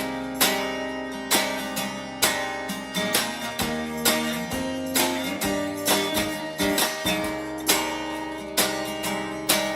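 An instrumental stretch of a song: acoustic guitar strummed in a steady rhythm, about one strum a second, over sustained notes.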